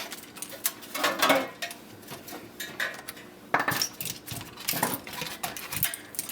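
Irregular metallic clinks, knocks and rattles of hand tools and loose metal parts as a dehumidifier is dismantled by hand.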